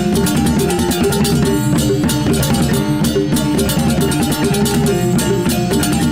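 Loud music with dense, fast percussion over held pitched notes.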